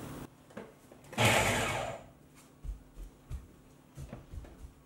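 Countertop blender running in one short pulse on strawberries about a second in, tapering off within a second, followed by a few faint knocks.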